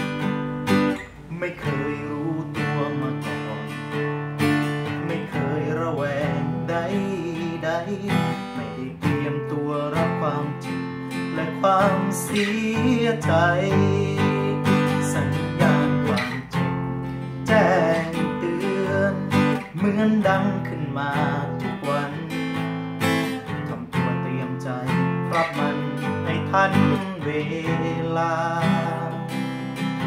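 Acoustic guitar playing an instrumental passage: strummed and picked chords with changing melody notes, without singing.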